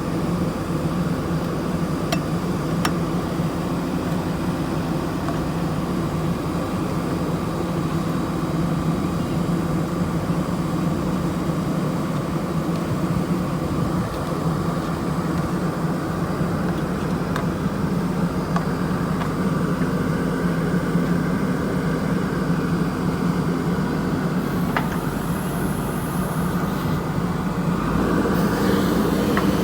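Diesel engine of a JCB backhoe loader running steadily under light work, picking up in level and pitch about two seconds before the end.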